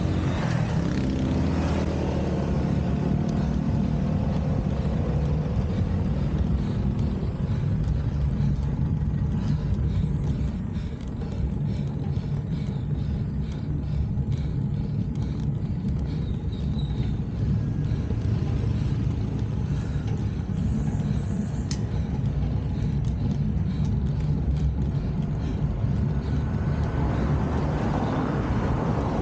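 Steady low rumble of motor vehicles on the road, which swells near the end as a vehicle draws closer.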